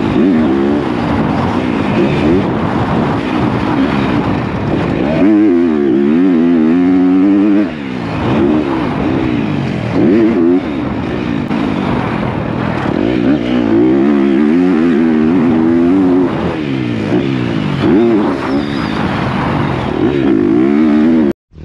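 2023 motocross bike engine revving hard under riding, its pitch climbing and dropping again and again as the rider opens and shuts the throttle through the gears, recorded close up from the rider's helmet. The sound cuts off abruptly just before the end.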